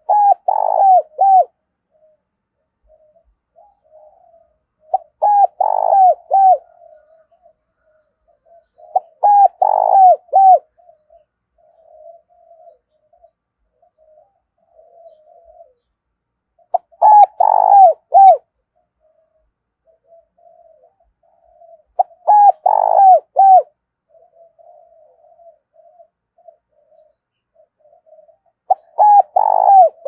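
Spotted dove cooing: six short phrases of three or four quick coos each, a few seconds apart, with faint softer notes in between.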